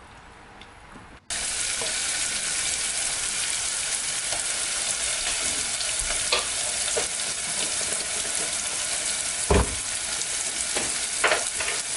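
Sliced onions sizzling as they fry in hot oil in a saucepan. The sizzle starts abruptly about a second in and stays steady, with a few short clicks and one low thump about three-quarters through.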